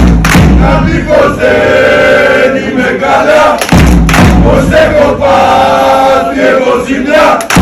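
A group of voices chanting loudly in unison, the chant repeating about every four seconds, each round opening with a low thud.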